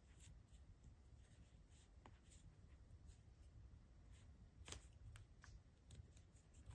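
Near silence, with faint rustling and a few soft ticks as hands work a small crochet hook through thick twisted cotton cord, hiding the cord's end between stitches.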